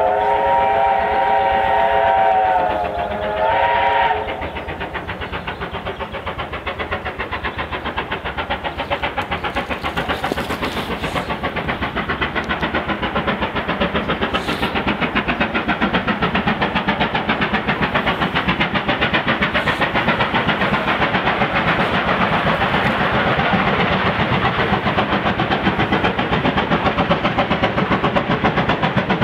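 Steam locomotive whistle blowing a chord of several notes for about four seconds. Then the locomotive's exhaust beats under steam, a steady rapid rhythm growing louder as it approaches.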